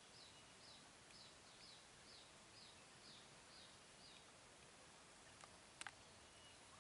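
Faint, high bird chirps: short downward-sliding notes repeated about twice a second for the first four seconds, then a couple of sharp clicks near the end, over a soft background hiss.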